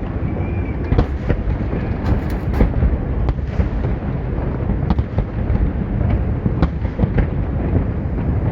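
Fireworks display: a continuous deep rumble of bursting aerial shells with frequent sharp bangs and crackles layered over it.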